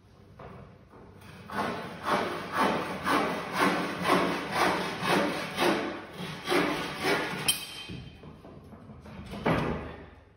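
Bow saw cutting through a wooden board in quick, even strokes, about two a second, for some six seconds; it stops, and a single thump comes near the end.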